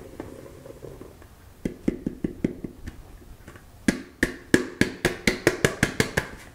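Plastic mixing bowl being tapped to knock the last of the flour out into a stainless steel mixer bowl: a short run of sharp taps about a second and a half in, then a longer, quicker run of about five taps a second from about four seconds in.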